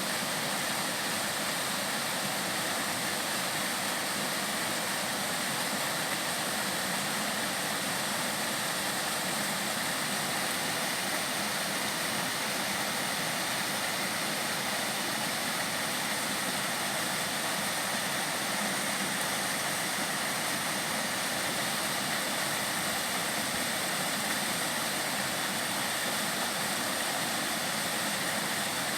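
Mountain-valley stream flowing, a steady, even rush of water.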